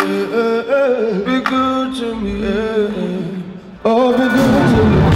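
A male voice sings slow, drawn-out notes that waver and bend, with little accompaniment. About four seconds in, louder full band music cuts in abruptly.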